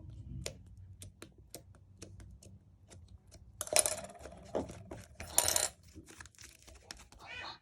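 Small hard objects clicking and tapping one at a time, then clattering twice more loudly, like small pieces being dropped or shaken.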